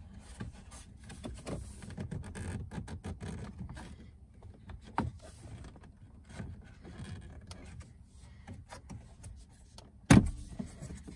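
Plastic dash trim bezel around a 2019 Toyota Tundra's gauge cluster being pried and pulled loose by hand: irregular small clicks, creaks and rubbing of plastic, then one sharp loud snap a little after ten seconds in as a retaining clip lets go.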